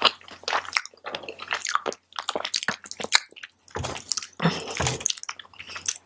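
Close-miked chewing of a mouthful of fried rice: irregular wet mouth clicks, with a few deeper thuds about four to five seconds in.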